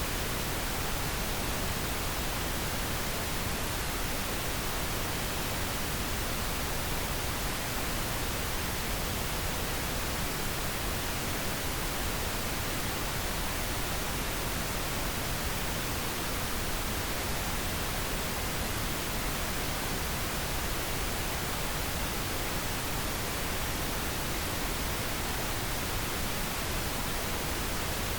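Steady pink noise: an even, unchanging hiss spread across low to high pitches, with no other sound.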